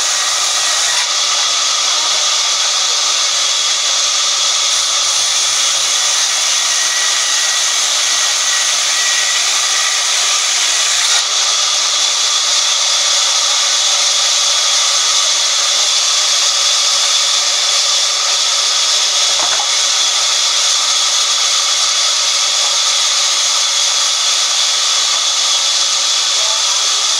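Large sawmill band saw ripping a long wooden plank lengthwise: a steady, high-pitched sawing noise without a break.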